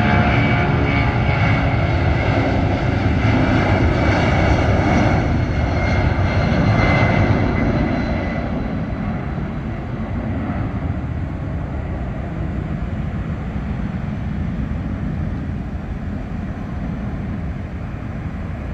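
Boeing 757-200's two Pratt & Whitney PW2037 turbofans at takeoff thrust: a loud rumble with a high whine on top as the jet rolls and lifts off, the sound easing off gradually after about eight seconds as it climbs away.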